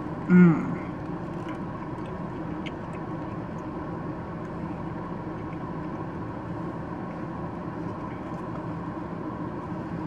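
Steady hum inside the cabin of a parked car with its engine running at idle, after a short appreciative 'mmm' about half a second in.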